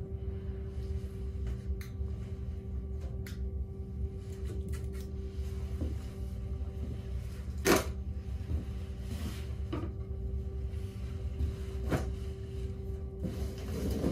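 A few scattered knocks and clatters as things are handled around a metal-framed glass reptile enclosure, the sharpest a little past the middle, over a steady low hum.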